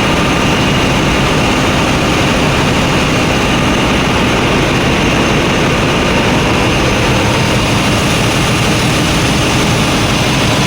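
Steady, loud machinery drone with a faint high whine, unbroken throughout.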